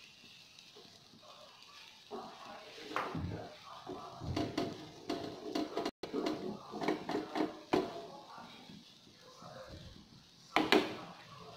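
A wooden spatula clicks and knocks against a nonstick frying pan several times, with the loudest knock a little before the end. Indistinct voices in the background.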